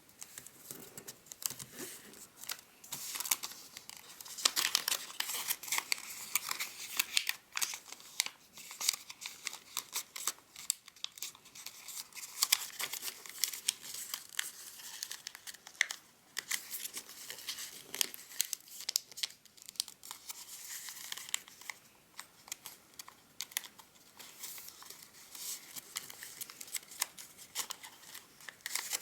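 A square sheet of origami paper being folded and squashed by hand: irregular crisp crackles and rustling as the paper is bent, opened and creased.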